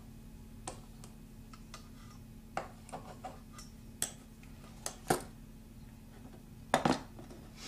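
Scattered light clicks and taps of a soldering iron being cleaned and handled at the bench, the sharpest near the middle and a cluster near the end, over a faint steady low hum.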